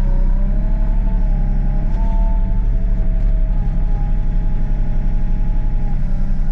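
Excavator's diesel engine running steadily under load as the boom and dipper are worked, with a thin whine from the hydraulics that wavers up and down in pitch.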